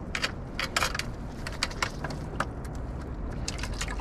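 Irregular sharp clicks and taps from a freshly hooked herring and the fishing rod shifting on the jetty rocks, over a steady low rumble of wind and surf.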